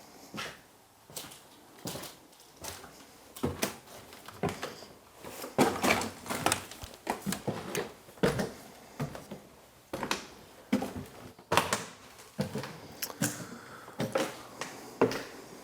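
Footsteps on a debris-strewn floor: irregular crunches and clicks, about one or two a second.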